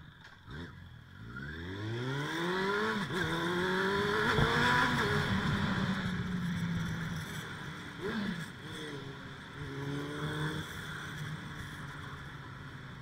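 Suzuki Bandit 600's inline-four engine accelerating: its pitch climbs over the first few seconds and holds. It drops sharply about eight seconds in, rises again, then eases off near the end.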